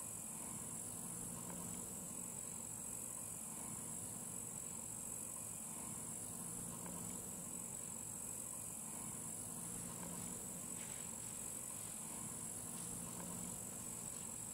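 Steady, high-pitched chirring of crickets in an outdoor ambience, with a faint low hum beneath.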